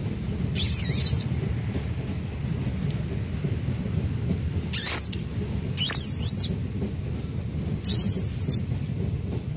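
Labrador retriever puppies giving short high-pitched squeals, four brief bursts a second or two apart, over a steady low rumble.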